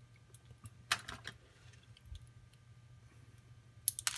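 Light metallic clicks and taps from handling a disassembled pin-tumbler lock cylinder and its small pins: a few sharp clicks about a second in and again near the end.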